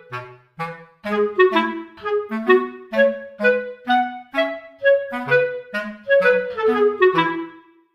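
Light background music: a bouncy melody of short, separate notes, woodwind-like in tone.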